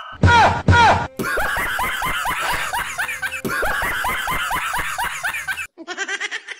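Loud laughter: two short bursts, then rapid, evenly repeated 'ha-ha' pulses for about four seconds, and a thinner, higher laugh near the end.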